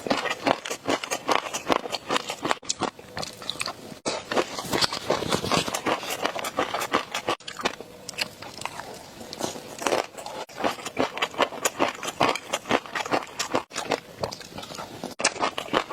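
Close-miked eating: wet, crunchy biting and chewing with a dense run of sharp crackling clicks, broken by brief cuts every few seconds.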